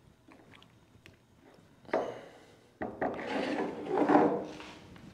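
Scraping and rubbing as the marinade is scraped over the seafood: a few faint clicks, one sharp scrape about two seconds in, then about two seconds of steady scraping.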